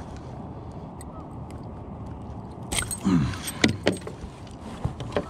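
A fishing lure and its treble hooks rattling, with sharp clicks and knocks, as a northern pike is unhooked and handled over a rubber-mesh landing net in a kayak. The clicks start a little past halfway over a steady low rumble.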